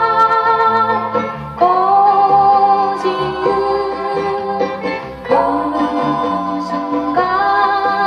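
A 1970s Korean folk song playing from a vinyl record: a held, gliding melody line over a soft accompaniment, with no words. The melody pauses briefly twice before a new phrase starts.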